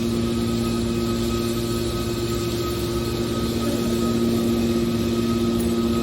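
Hydraulic scrap-metal baler running: a steady machine hum with constant tones and a faint higher whine, level throughout.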